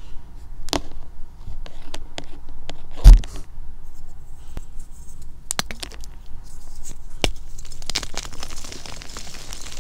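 Blocks of gym chalk being handled and knocked together, with sharp clacks and one heavy thump about three seconds in. From about eight seconds, chalk pieces crumble and crunch as they are crushed in the hands.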